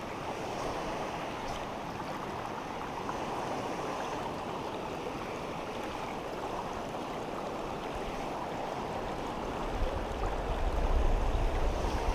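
Steady rush of flowing river water. From about ten seconds in, a low, uneven rumble joins it.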